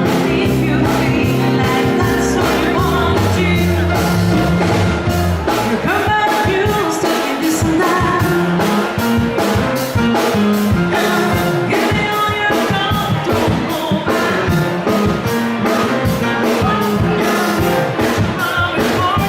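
Loud music with a singing voice and a steady beat.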